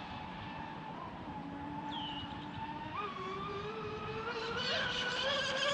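Oxidean Marine Animal Twin Cat RC catamaran's electric motor on 8S, turning three-blade props, a whine that steps up in pitch and gets louder as the boat speeds up.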